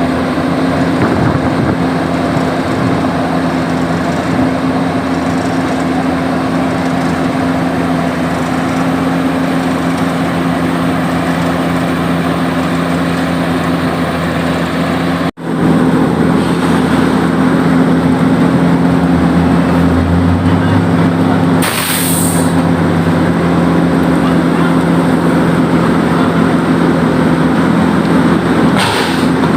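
Heavy diesel engine of road-paving machinery running steadily at a constant speed. The sound drops out for an instant about halfway, and two short hisses come later, the first longer than the second.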